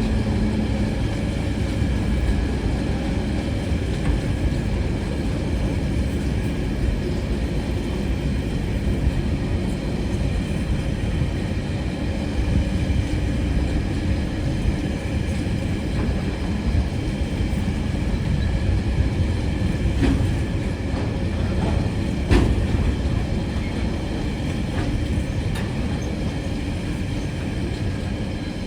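Freight train rolling past: a steady rumble of wheels on rail with a faint steady whine above it, and a couple of sharp knocks about two-thirds of the way through.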